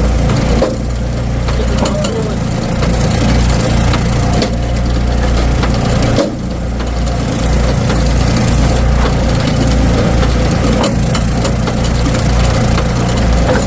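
Engine of a log splitter running steadily under load while wood is being split, with occasional cracking of the splitting wood.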